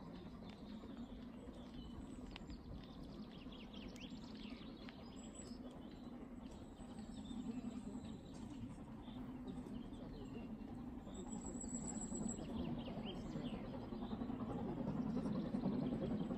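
Brockenbahn narrow-gauge steam train running, a steady low rumble that grows louder toward the end, with small birds chirping.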